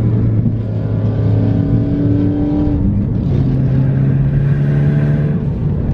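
Car engine running steadily, its pitch stepping up slightly about three seconds in.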